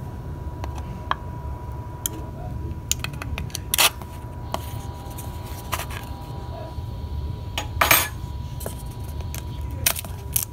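Plastic container being handled: scattered clicks and knocks, with two louder clatters about four and eight seconds in, over a steady low rumble and a faint steady high whine.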